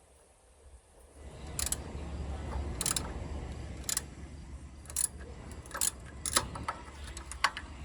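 Ratchet wrench worked in short strokes on a seized bolt, a brief burst of metallic clicks about once a second, over a low steady rumble.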